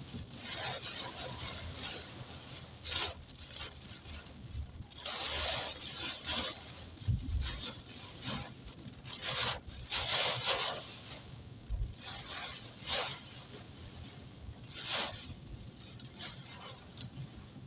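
Car driving through a heavy rainstorm, heard from inside the cabin: rain on the body and glass with a low road-and-engine rumble, broken by repeated swishing scrapes of the windshield wiper blades across the wet glass every second or two.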